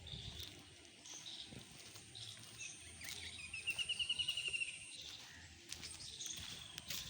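Birds chirping, with one bird singing a fast trill of about a dozen quick repeated notes a little past three seconds in. A thin steady high-pitched tone runs underneath and stops about five seconds in.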